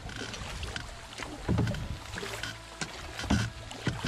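Canoe paddles stroking through river water, with water splashing and rushing past the canoe's hull on a shallow, choppy stretch. A few louder splashes stand out, one about a second and a half in and two near the end.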